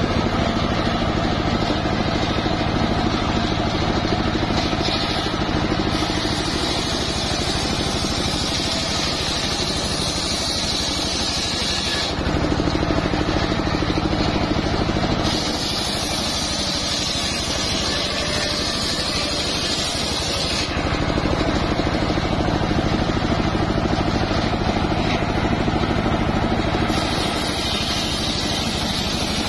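Homemade engine-driven circular sawbench running steadily while its large blade rips a jowar log lengthwise. A loud, high cutting noise swells three times, for several seconds each, as the log is fed through the blade, and between cuts only the engine and the spinning blade are heard.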